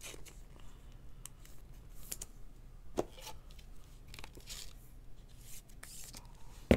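Trading cards and clear plastic card holders being handled on a table: soft rustling and light taps, a sharper plastic click about three seconds in, and a loud double clack at the very end.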